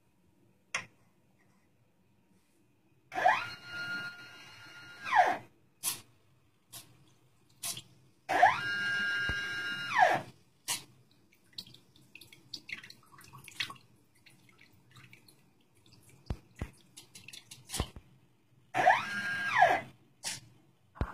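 Small electric pumps of a homemade drink-dispensing machine run in three bursts of one to two seconds, as liquid is dispensed into a glass. Each burst has a motor whine that rises in pitch as it starts and falls as it stops. Sharp clicks come between the bursts.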